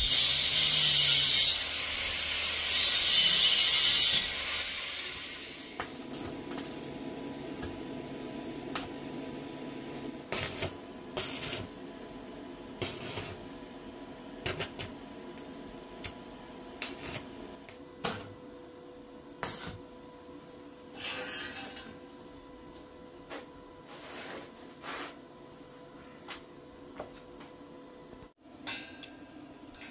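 Stick arc welding on metal bars: a loud sizzling hiss in two spells over the first four seconds. Then a quieter steady hum, broken by frequent sharp metal clinks and taps as the bars are handled.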